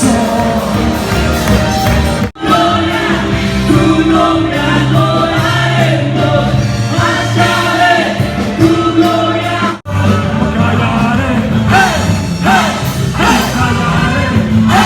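Christian worship music with singing over a band. The sound drops out for an instant twice, about two seconds in and again near ten seconds.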